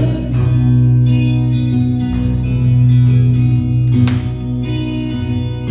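Live song music in an instrumental gap between sung lines: guitar chords ringing and held over steady low notes, with a fresh strum about four seconds in.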